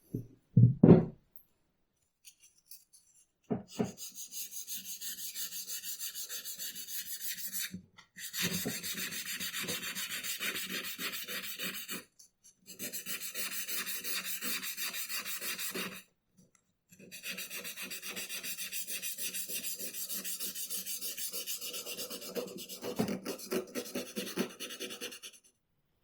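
A few sharp knocks about a second in, then fast, even back-and-forth abrasive strokes, a file or abrasive being worked over the ax, in four long bouts with short pauses between them.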